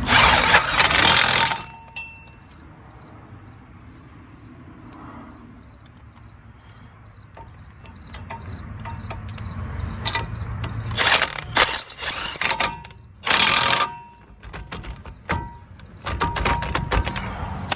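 DeWalt impact wrench hammering in short bursts of about a second or less, once at the start and several times later on, snugging the hub's mounting bolts, with faint clicks and tool handling between the bursts.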